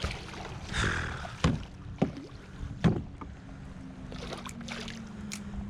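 A landing net splashing as it scoops a bass out of the water beside a kayak, then water pouring off the mesh as it is lifted. Three sharp knocks stand out as the net and the thrashing fish come up against the boat.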